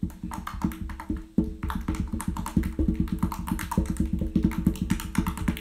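Glitter slime clicking and popping as fingers press and poke into it: a quick, irregular run of small pops, several a second.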